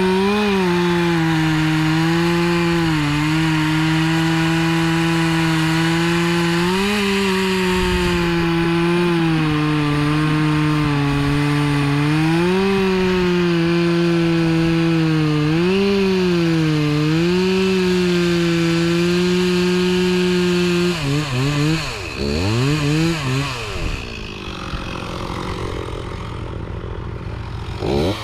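Stihl MS260 two-stroke chainsaw running at full throttle and cutting wood, its pitch dipping several times as the chain bogs in the cut. About 21 seconds in it drops off, with a few throttle blips, and settles to a quieter idle before one more rev near the end.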